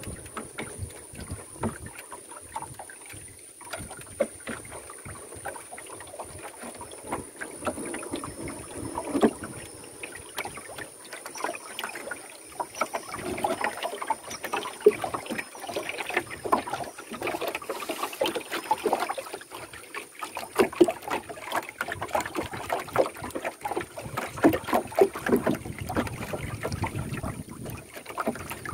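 Water splashing and lapping against the side of a small wooden canoe, with irregular small splashes and knocks as a longline is hauled in by hand; the splashing gets busier about halfway through.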